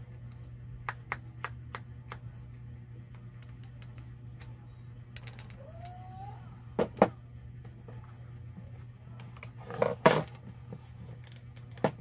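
Clicks and knocks of hard plastic drill housing parts and metal tool pieces being handled and set down on a wooden workbench while a corded electric drill is reassembled, the loudest cluster of knocks about ten seconds in. A steady low hum sits underneath.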